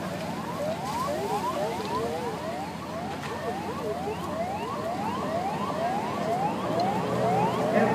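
Electronic siren going in quick repeated rising sweeps, each climbing and snapping back, about three a second.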